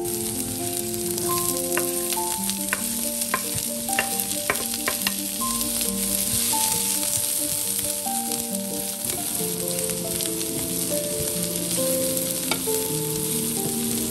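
Chopped onion and carrot sizzling in oil in a nonstick frying pan, stirred with a wooden spatula. A steady frying hiss runs throughout, with a run of sharp clicks of the spatula against the pan in the first half. Soft melodic background music plays underneath.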